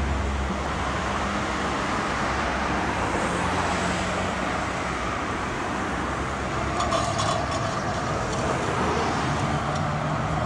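Road traffic on a multi-lane city street: cars driving past with steady tyre and engine noise, and a few faint clicks about seven seconds in.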